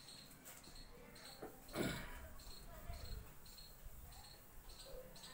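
Faint chirping of a cricket, a short high chirp about twice a second, with a brief rubbing swish about two seconds in as the whiteboard is wiped.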